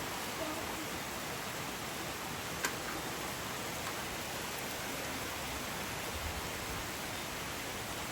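Steady rushing noise of the hurricane's rain and wind, with one sharp click about two and a half seconds in.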